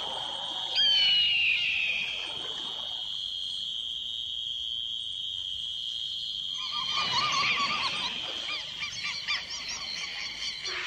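Experimental electronic music from a late-1980s synthesizer cassette: a steady high synth tone, with a bright falling glide about a second in and a flurry of short rising-and-falling chirps from about seven seconds in.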